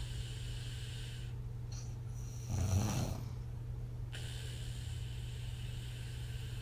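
A woman snoring on her back, each breath out puffing through her lips. One louder snore comes about two and a half seconds in and lasts under a second.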